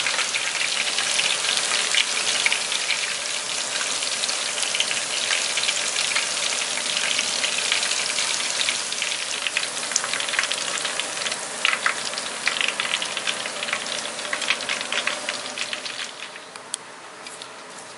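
Battered onion and sakura shrimp kakiage deep-frying in hot oil: a steady sizzle full of sharp crackles and pops, fading away near the end.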